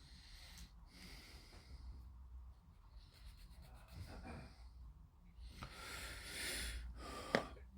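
Faint rubbing and rustling of small parts being handled, with one sharp click near the end.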